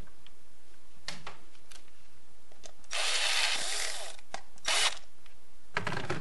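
Electric screwdriver driving a screw into a chainsaw crankcase: a run of about a second starting around three seconds in, then a short burst near five seconds, with a few handling clicks before. Near the end comes a brief rattling run, typical of the driver's ratchet clutch slipping once the screw is tight.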